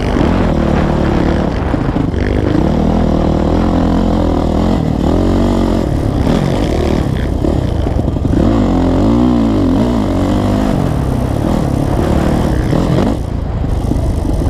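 Motocross bike engine at racing throttle, heard close up from a helmet-mounted camera, its pitch rising and falling repeatedly as it revs. The engine note dips briefly near the end.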